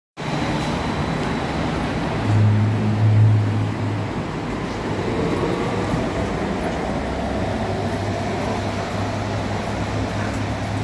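Light-rail tram passing close by: a steady low hum with rolling wheel noise, loudest between about two and four seconds in.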